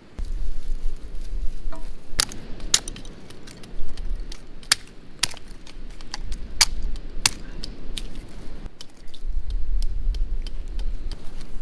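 Wood cracking and snapping: a dozen or so sharp, irregular cracks, over a low rumble that comes and goes.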